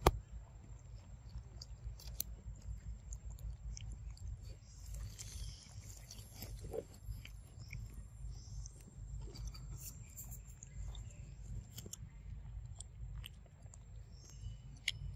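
Macaque monkeys chewing mango close to the microphone, with scattered small clicks.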